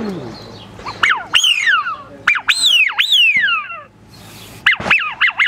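Hand-blown duck call sounding a wild duck's spring call. It gives two runs of whistles that each shoot up in pitch and fall away, with a short gap between the runs.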